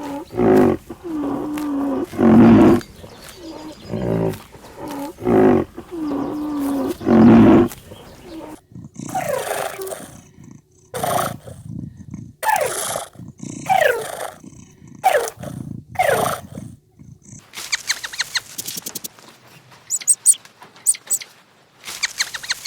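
A big cat roaring and growling, with about six loud roars in the first eight seconds. These are followed by a string of short calls from another animal that each fall in pitch, and then fast high-pitched chirping near the end.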